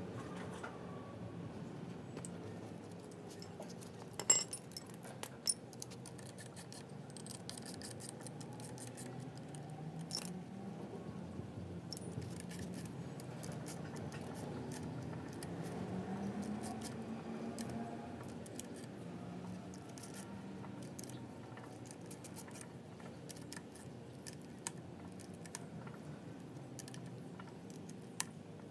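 Light metallic clicks, clinks and scrapes of a coupling drive gear being fitted by hand to a marine gearbox, with one sharp clink a little over four seconds in and a few more later. A low hum that slowly rises and falls in pitch runs underneath.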